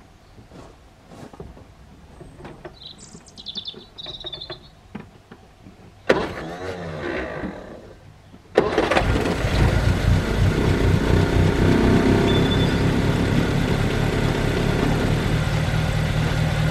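Ford Anglia E494A's small sidevalve four-cylinder engine turns over on the starter for about two seconds. It catches about eight and a half seconds in and then runs steadily. The engine sounds a lot happier now that the leaking float in its Zenith carburettor has been replaced and it no longer floods.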